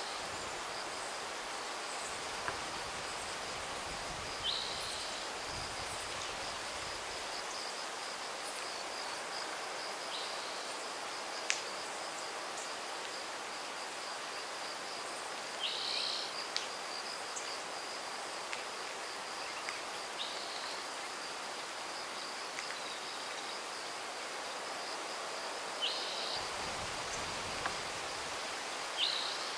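Outdoor spring ambience: an insect's steady high-pitched trill runs without a break over a soft even hiss. Short bird chirps come every few seconds, and there is a single sharp click about eleven seconds in.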